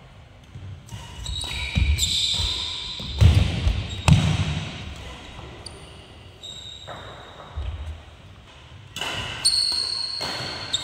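Badminton rally: rackets hitting the shuttlecock with several sharp strikes, and court shoes squeaking in short high squeals on the wooden floor, echoing in a large hall.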